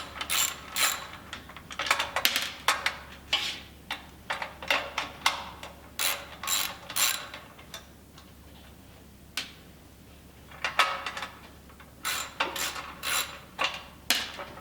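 Socket ratchet clicking in quick runs as the 10 mm bolts holding a Honda engine's recoil starter cover are undone, with a pause of a few seconds about halfway through.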